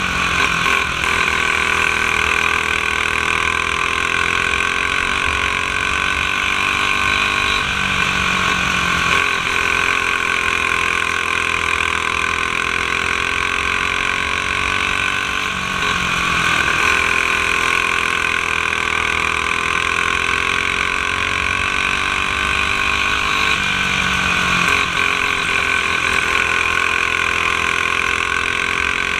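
A single-cylinder four-stroke clone racing kart engine fitted with a blue restrictor plate, running hard under racing load and heard from an onboard camera. Its pitch drops briefly about every eight seconds as it slows for a corner, then climbs again down the straight.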